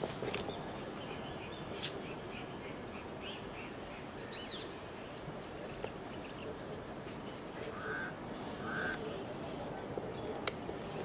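Outdoor ambience: a steady background hiss and hum with scattered bird calls, namely small chirps in the first few seconds, a brief rising call about four seconds in and two short calls later on. A single sharp click comes near the end.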